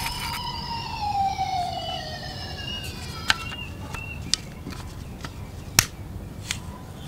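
A siren wailing in one slow rise and fall that fades out about three seconds in. Then a few sharp plastic clicks and knocks as a toy wheel loader's front section is pulled apart from its body, the loudest near the end.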